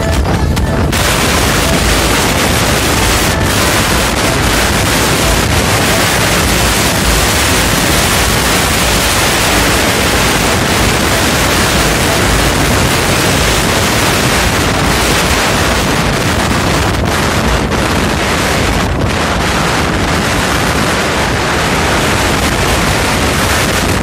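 Loud, steady wind rushing over the microphone of a moving motor scooter, a hiss that covers everything else.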